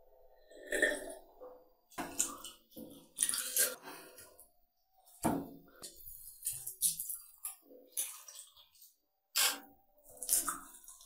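Close-miked eating sounds: wet chewing and lip smacks, and fingers mixing rice and curry on a ceramic plate, in short irregular clicks and squishes with gaps between. A drink of water from a glass near the start.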